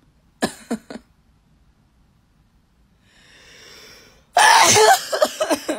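A person sneezing during a nasal swab test, the swab in the nose setting it off. There are three short sharp sounds near the start, a drawn-in breath, and then one loud sneeze about four seconds in.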